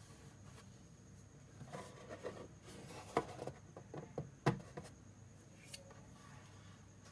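A small canvas board slid and turned by hand on a wooden tabletop: light scraping and rubbing with a few sharp taps in the middle, the loudest two about a second apart.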